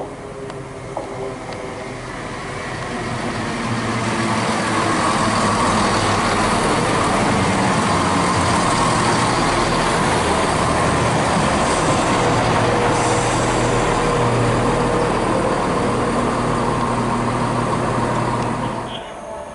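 Turbostar diesel multiple unit running through the station, its engine hum and wheel noise swelling as it nears. It holds steady and loud as the carriages pass, then drops away quickly near the end.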